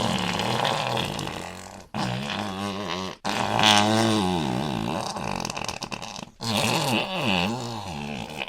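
A run of fart sound effects, one after another: four of them, each one to three seconds long with a wavering pitch, separated by brief breaks.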